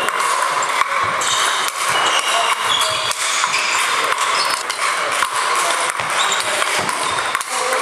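Ping pong ball clicking back and forth off sandpaper bats and the table during a rally, with more ball clicks from other tables over a steady hall background.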